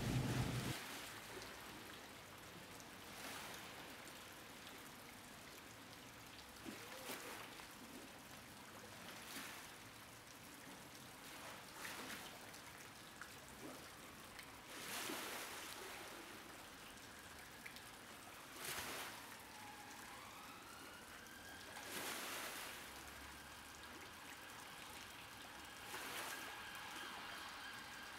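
River water lapping and washing over submerged stone steps, swelling every two to four seconds as small waves come in. In the last third a siren rises in pitch and then holds a steady note.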